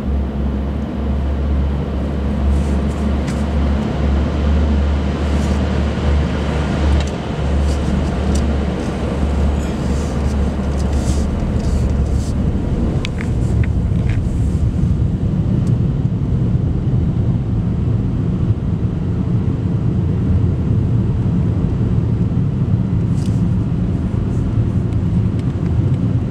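Steady engine and tyre rumble heard inside a moving car's cabin. The low drone shifts up in pitch about halfway through.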